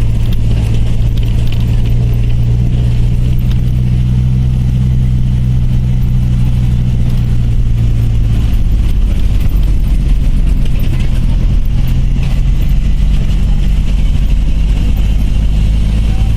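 Bus engine running steadily, heard from inside the moving bus, with the engine note shifting about halfway through.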